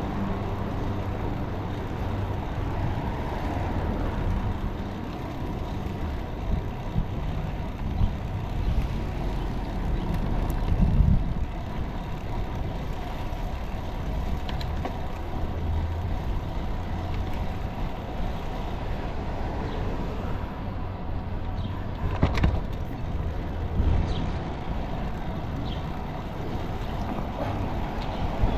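Street traffic and road noise heard from a moving bicycle: a steady low rumble, with a sharp click about three-quarters of the way through.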